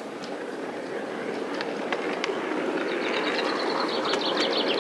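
Miniature ride-on railway train running along the track: a steady rumble of wheels on rail that grows louder, with a few sharp clicks. A bird sings a fast trill of high chirps from about three seconds in.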